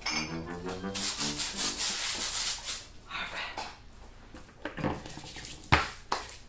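A short run of music that ends about a second in, then a rough rubbing noise for about two seconds. A few soft knocks follow near the end.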